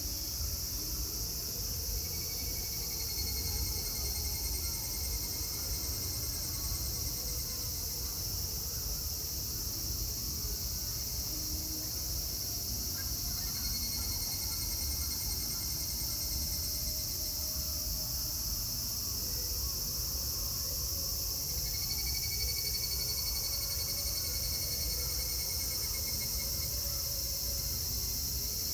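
A steady, high-pitched chorus of cicadas, with three repeated pulsing phrases of the higurashi (evening cicada, Tanna japonensis) call rising out of it, each lasting about five seconds.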